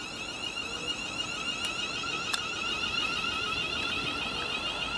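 London Northwestern Railway Class 350 Desiro electric train pulling away from the platform. Its traction equipment gives a warbling, high-pitched electric whine that grows steadily louder.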